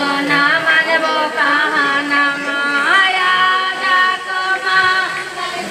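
A high voice singing with music, holding long notes and sliding between them, with one clear upward slide about three seconds in.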